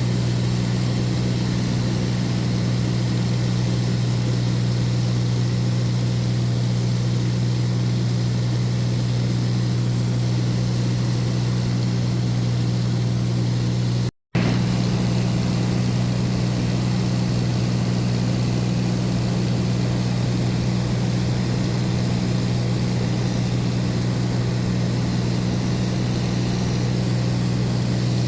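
Steady drone of an eight-seat light propeller aircraft's engine and propeller, heard from inside the cabin. The sound drops out completely for a split second about halfway through.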